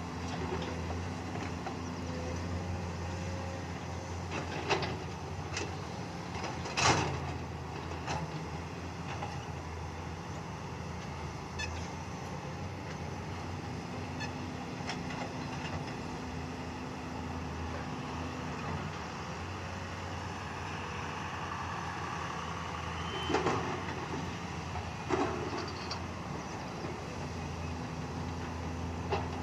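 Excavator diesel engine running steadily, with a few sharp metallic clanks over it, the loudest about seven seconds in and two more a little after the twenty-three-second mark.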